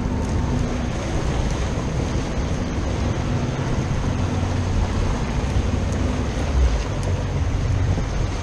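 Boat engine running steadily under wind buffeting the microphone and water washing against the hull.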